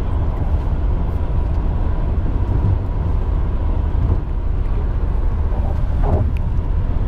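Steady road noise inside a moving taxi's cabin: a low rumble of tyres and engine at road speed, with a faint thin steady whine above it.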